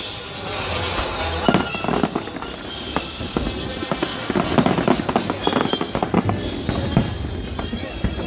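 Aerial fireworks shells bursting in quick succession: a dense run of bangs and crackling, with the strongest booms about a second and a half in and again around the middle and near the end.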